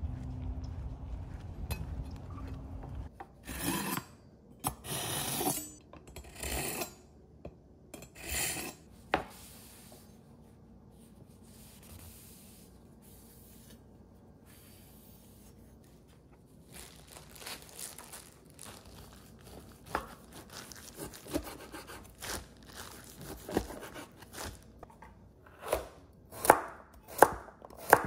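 Wind rumbling on the microphone for the first few seconds, then about half a dozen rasping strokes of a kitchen knife drawn through a knife sharpener. After a quiet pause, the knife chops carrots on a wooden cutting board, light taps at first and the loudest, sharpest chops near the end.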